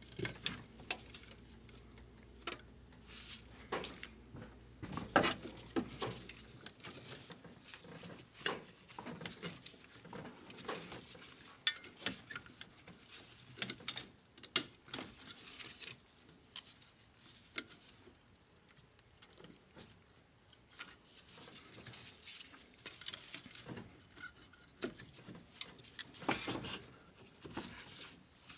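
Irregular light clicks, taps and rattles of gloved hands working a hose and its fittings loose on a Mercedes Sprinter engine.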